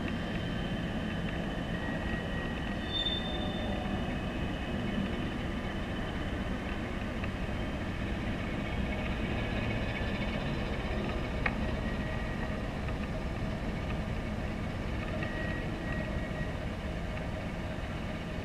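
Diesel shunting locomotive running steadily while hauling a wagon away along the tracks: a continuous low engine noise with faint thin high tones on top.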